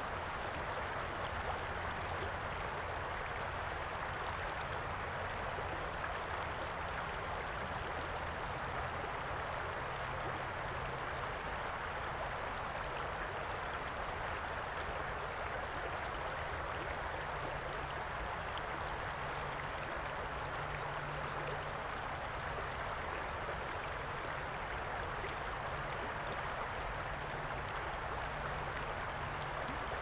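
Shallow river water flowing and rippling over rocks in a steady, even rush, with a low rumble underneath.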